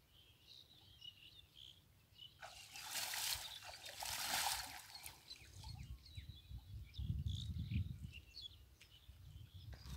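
Water sloshing and splashing as a person wading in a canal pulls up and clears a gill net, loudest for a couple of seconds about midway. Small birds chirp throughout, and low rumbles come in about seven seconds in.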